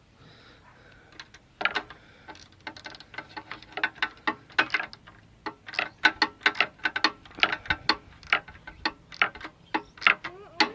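Hand tools working a small nut and bolt: a run of sharp, irregular metallic clicks and ticks, a few a second, starting about a second and a half in.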